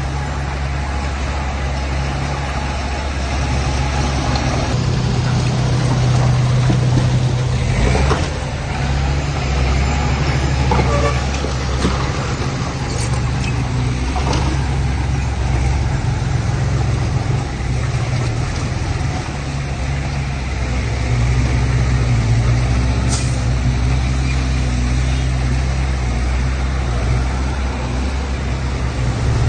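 Heavy diesel earthmoving machinery, dump truck and bulldozer engines, running steadily under load, with a few short knocks of metal.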